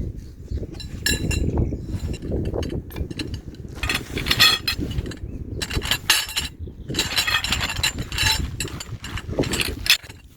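Metal objects clinking and rattling in clusters over a steady low rumble, with a brief ringing tone on the first clinks.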